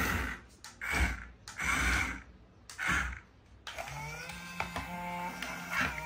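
Remote-control toy excavator's small electric motors and plastic gears whirring in four short bursts about a second apart, then running more steadily with a humming tone for the last couple of seconds as it turns.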